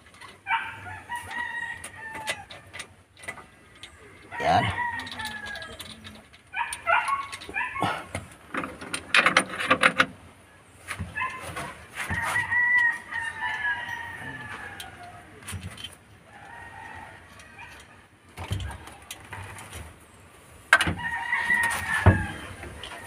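A rooster crowing several times, each crow a long, drawn-out call falling at the end. Between the crows come sharp metal clinks and knocks from camshaft bearing caps being worked off an engine head.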